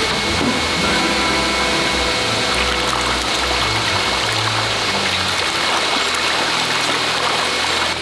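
Steady rush of running water, with background music carrying a shifting bass line.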